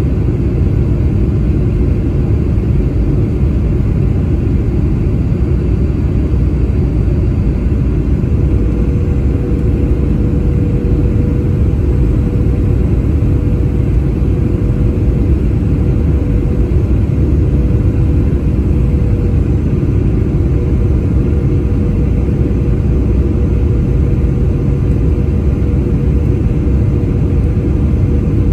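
Cabin noise of a Boeing 737-800 heard from a window seat over the wing on final approach: a steady rumble of its CFM56-7B engines and the rushing air. A steady hum comes in about nine seconds in and holds.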